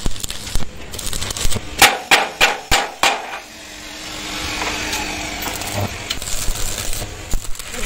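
About five sharp hammer strikes on steel in quick succession, then a steady crackling hiss of an arc welder laying a bead on a steel truck chassis rail.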